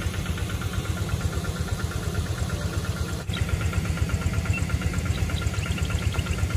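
An engine idling steadily with an even pulsing beat of about six or seven pulses a second.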